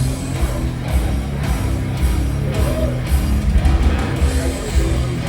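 Live metal band playing loud through a venue PA during sound check: heavily distorted guitar and bass holding low notes.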